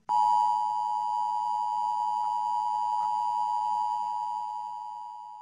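A steady electronic tone, like a long beep, starts suddenly and is held for about five seconds, slowly fading toward the end.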